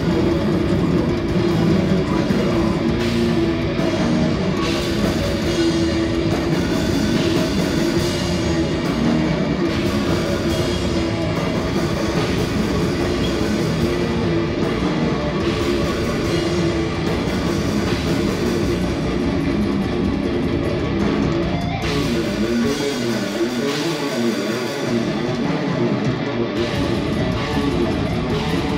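Heavy metal band playing live: distorted electric guitars, bass and drum kit at full volume. About 22 seconds in, the deep low end and drums drop out for some four seconds, leaving a lone guitar line, before the full band comes back in.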